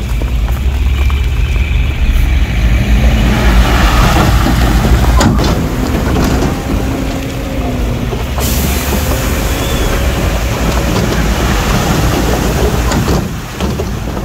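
Heavy diesel earthmoving machinery, Komatsu bulldozers and dump trucks, running with a deep, steady engine rumble. A high hiss comes in a little past halfway and lasts about four seconds.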